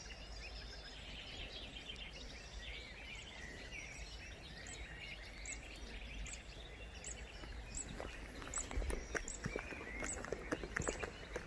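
Several birds chirping and singing over a low steady background hum. From about eight seconds in, a run of short sharp clicks and rustles joins them.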